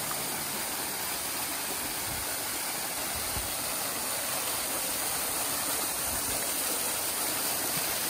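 A hot-spring waterfall pouring into a river pool: a loud, steady, dense rush and splash of falling water.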